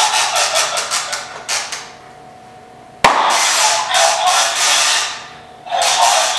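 Harsh, crackly, thin-sounding audio from a talking skeleton Halloween decoration's small built-in speaker. It breaks off about two seconds in. A single sharp click comes about three seconds in, and the crackly sound starts again as the decoration's eyes light up, fading out around five seconds and resuming near the end.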